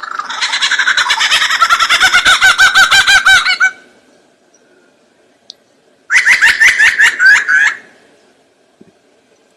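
A bird calling in two loud bursts of rapid, stuttering pulses, the first about three and a half seconds long, the second shorter, starting about six seconds in.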